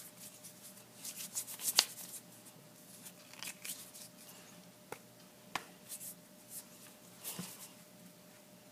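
Hands rubbing, slapping and clasping through a handshake routine: a quick run of swishes and pats, the sharpest about two seconds in, then a couple of single sharp clicks and more rustling near the end.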